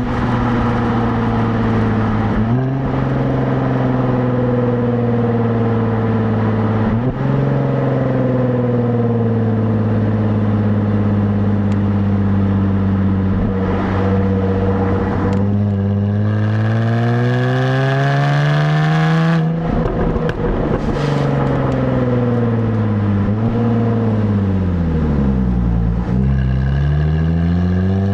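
Stock exhaust of a 2017 Jaguar F-Type, heard from the rear plate. It drones at a steady cruise with a couple of brief jumps in pitch, then rises through the revs about halfway and breaks off at a gear change. The note then falls away and climbs again near the end.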